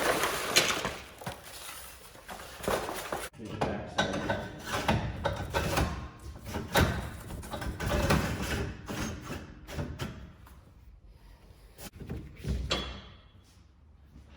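Irregular knocks, clanks and scrapes of parts and tools being handled during work on a combine grain head, busiest in the first part and thinning out near the end.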